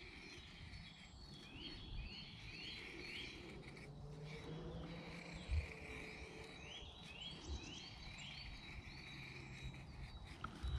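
A songbird singing a short phrase of quick repeated chirping notes, twice, over a few soft strokes of a knife shaving down a wooden stick.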